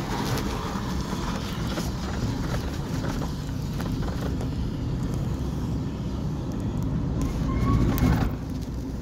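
Steady low rumble of road and engine noise from inside a moving vehicle, with scattered small knocks.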